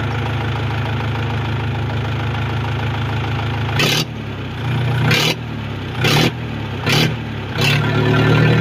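Mahindra tractor's diesel engine idling steadily, then revved in short throttle blips about once a second from about four seconds in.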